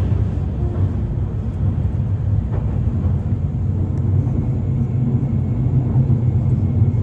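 Steady low rumble of a running vehicle, an even drone with no pauses.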